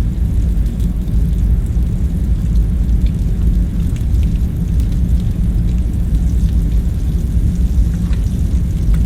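A steady low rumble of background room ambience, with faint, scattered small clicks and taps over it.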